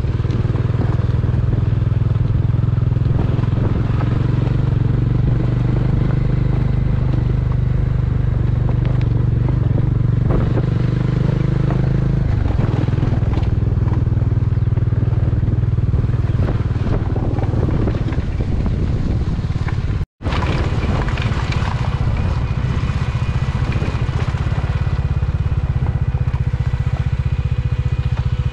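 Motorcycle engine running steadily while riding along a rough dirt track, with some gravel rattle. The engine note shifts about twelve seconds in, and the sound drops out for a split second a little after twenty seconds.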